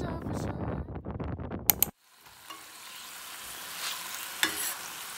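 Background music that cuts off abruptly about two seconds in, followed by a steady hiss with a few scattered small clicks.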